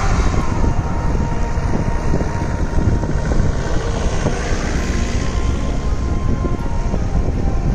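Force Gurkha 4x4s driving past one after another on a snowy road: a steady engine drone and tyre noise with a heavy low rumble.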